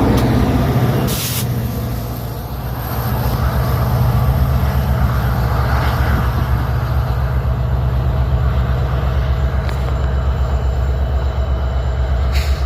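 Metra SD70MACH diesel locomotive running under load as the commuter train departs, a steady low engine drone with a fine rhythmic pulse. Two brief hisses, about a second in and near the end.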